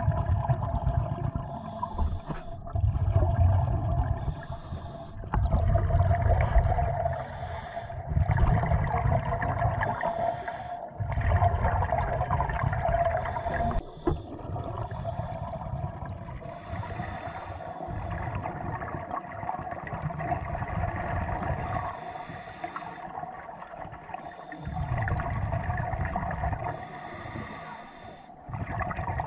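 Scuba diver breathing through a regulator underwater: short hissing inhales alternating with longer rumbling bursts of exhaled bubbles, about eight breaths in slow succession, over a faint steady hum.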